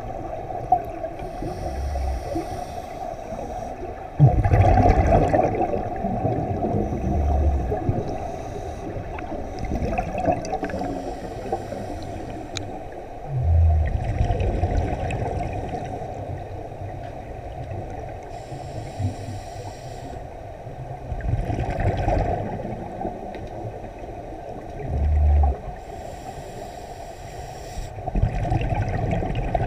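Scuba breathing heard underwater: surges of exhaled bubbles from a diver's regulator every few seconds, over a steady muffled rush of water.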